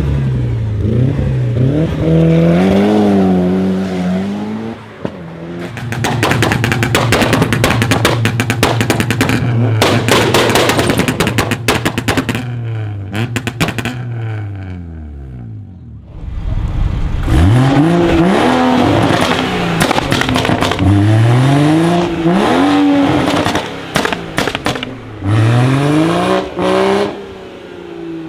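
A tuned sports car's engine being revved hard through a loud aftermarket exhaust, its pitch sweeping up and down with each blip. About five seconds in, a run of rapid sharp cracks and pops lasts several seconds. After a brief dip near the middle, a series of quick, repeated revs follows.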